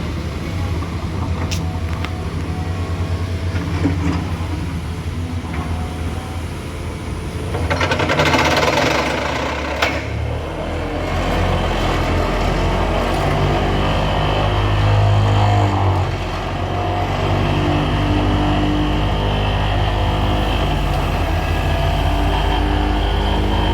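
Motor vehicle engines running on the road, with a surge of noise about eight seconds in and a deeper, steadier engine drone from about ten seconds on.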